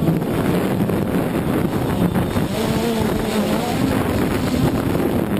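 Steady hum of a DJI Phantom quadcopter's motors and propellers, heard through the GoPro it carries, with wind rushing over the microphone. The motor pitch wavers a little midway.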